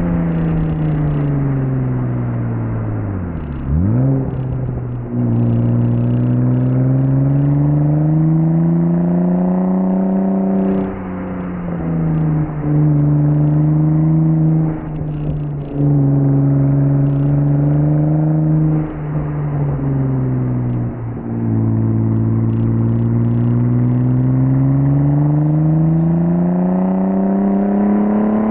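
1998 Audi S4 B5's 2.7-litre twin-turbo V6 being driven under load: the engine note climbs steadily with the revs, then drops at a gear change and climbs again, several times over. About four seconds in, the revs fall right away before picking up again.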